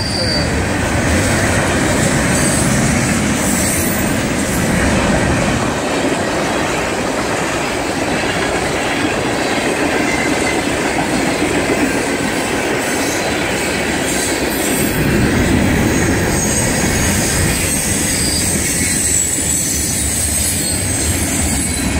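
A mixed freight train's cars rolling past at speed: a steady rumble and clatter of steel wheels on the rails.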